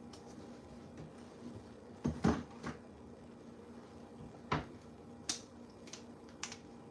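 Kitchen cupboard and a tin can being put away: a sharp double knock about two seconds in, another knock about four and a half seconds in, then a few lighter clicks near the end.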